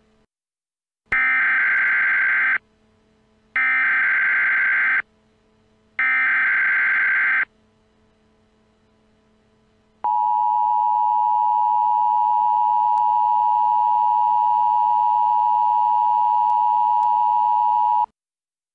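Emergency Alert System tones: three bursts of rapid digital data tones (the SAME header), each about a second and a half long. After a short pause comes the steady two-tone attention signal, held for about eight seconds before it cuts off.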